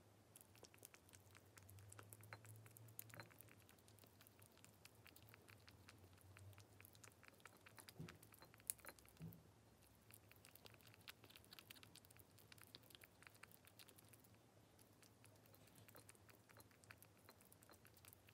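Faint, rapid wet clicking of a ragdoll kitten licking and chewing soft mousse-pâté wet cat food from a small ceramic bowl, with one sharper click near the middle.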